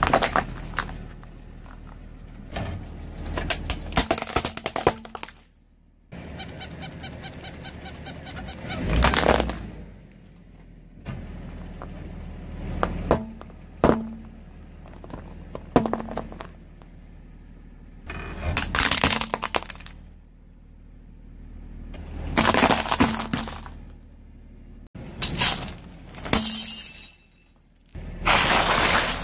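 A car tyre rolling over and crushing a series of objects (plastic cups, a crumbly stone block, wafer cups), heard as a string of separate cracks and crunches, each followed by a cut to the next object. A low engine hum runs underneath.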